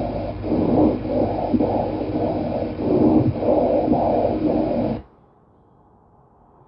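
Recorded breath sounds heard through a stethoscope: a rough, irregularly pulsing rush of air over a steady low hum, cutting off abruptly about five seconds in.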